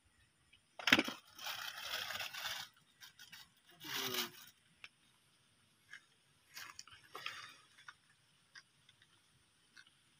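A sharp knock about a second in, then rough scraping and crunching in a few short spells, with scattered small clicks.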